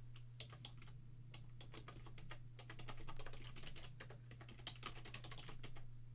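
Typing on a computer keyboard: a fast, irregular run of key clicks, over a steady low hum.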